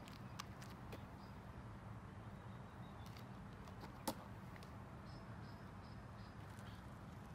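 Quiet outdoor background: a steady low hum with a few faint high chirps and light clicks. One sharp click about four seconds in, as the smoke ball is set down on the paving stones.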